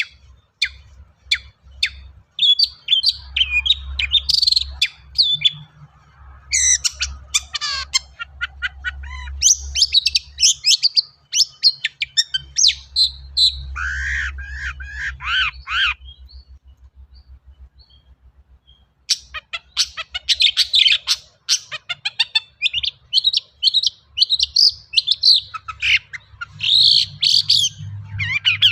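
Long-tailed shrike (cendet) singing a rapid, chattering song packed with mimicked calls of other birds. It pauses for about three seconds midway, then resumes.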